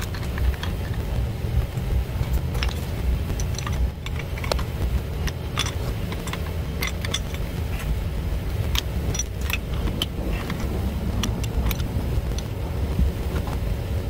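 Metal wrenches and pliers clicking and clinking on a brass balancing valve as its threaded CPVC adapters are tightened, in short irregular ticks. Under them is a steady low machinery rumble.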